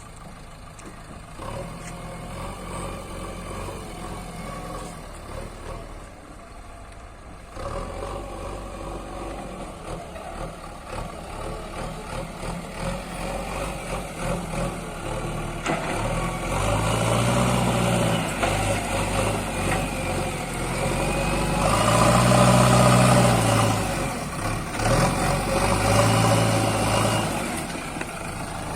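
Heavy diesel vehicle engine running under way, getting louder over time, with its pitch rising and falling three times in the second half as it is revved.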